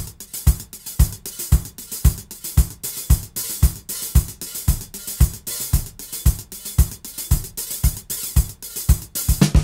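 Dance-track drum beat: a steady four-on-the-floor kick drum about twice a second with hi-hats ticking between the kicks. Near the end a louder low note comes in.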